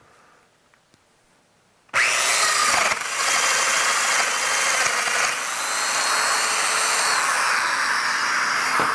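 Festool Domino DF 500 joiner switching on suddenly about two seconds in and running steadily as it cuts a mortise in a board. Its dust extractor, which switches on with the tool, runs alongside it.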